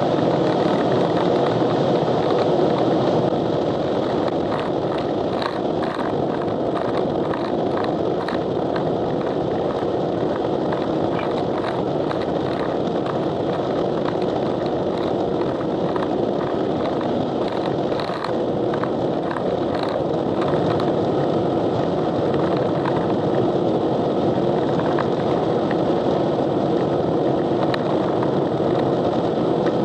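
Steady road and wind noise inside a car cruising at highway speed, with faint scattered ticks.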